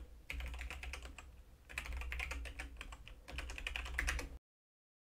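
Typing on a computer keyboard: quick bursts of key clicks that stop abruptly about four seconds in.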